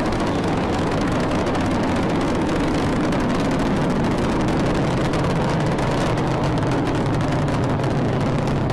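Space Shuttle Discovery's two solid rocket boosters and three main engines firing during ascent: a loud, steady rumble of rocket exhaust.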